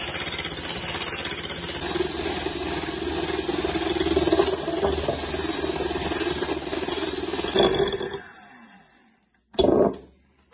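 Electric hand mixer whipping egg whites in a glass bowl: a steady motor hum with the beaters churning the foam. It stops about eight seconds in, and a short sharp clatter follows shortly after.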